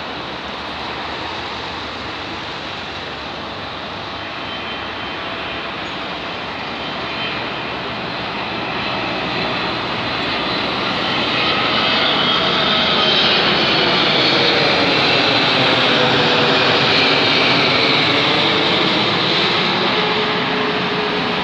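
Boeing 777-300ER airliner with its twin GE90 turbofans, landing gear down on final approach, passing overhead: a steady jet rumble that swells to its loudest in the second half and then eases slightly, with whining tones falling in pitch as it goes by.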